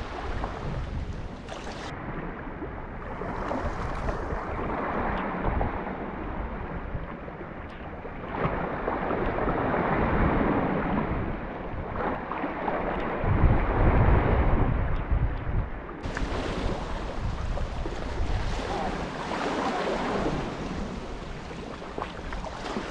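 Sea waves washing against concrete breakwater blocks, rising and falling in swells, with gusts of wind buffeting the microphone.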